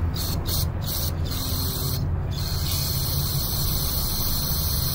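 Aerosol carburetor cleaner hissing through a straw into a small-engine carburetor's fuel inlet: a few short spurts, then one long steady spray from a little before halfway. The cleaner is flowing freely through the needle and seat. A steady low hum runs underneath.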